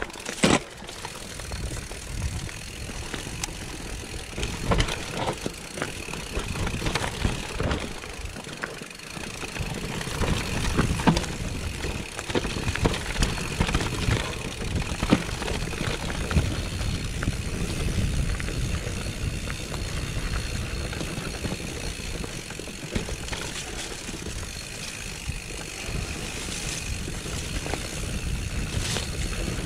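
Mountain bike riding down a rough, rocky singletrack: tyres rumbling over stones and the bike rattling, with frequent sharp knocks from impacts.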